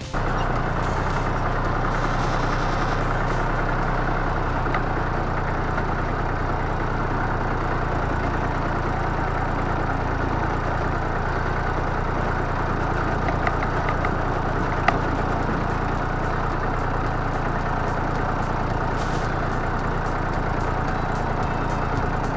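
Fordson Dexta tractor engine running steadily, with a single sharp click about fifteen seconds in.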